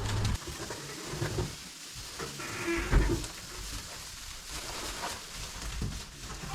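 A farm animal in the barn gives one short call about halfway through, with a low thump at about the same moment. Around it are rustling and small knocks.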